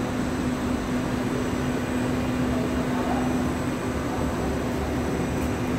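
Steady hum of factory machinery: one constant low tone over a continuous rumble, with no rhythm or breaks.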